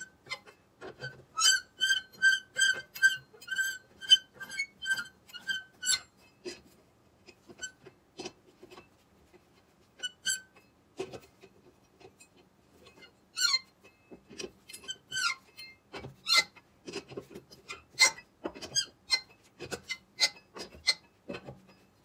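Four-way cross lug wrench turning lug nuts onto the wheel studs. A quick run of ringing metal clinks, about three a second, lasts for a few seconds, then gives way to scattered clicks and knocks as the nuts are run down.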